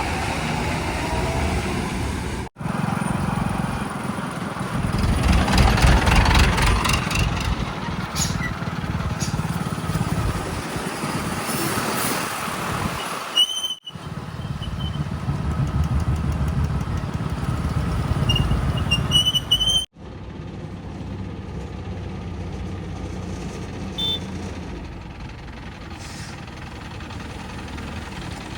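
Heavy diesel engines running and revving, in several clips cut abruptly one after another. Brief high squeaks sound near the middle and just before the last cut. The engine is quieter and steadier after that cut.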